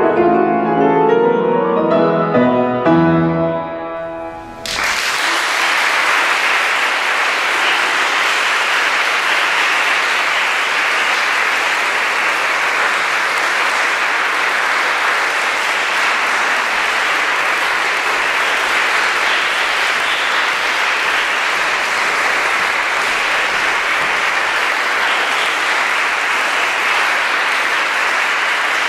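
A grand piano plays the closing chords of a song, which die away within the first four seconds. Then an audience breaks into sustained, steady applause, starting about five seconds in.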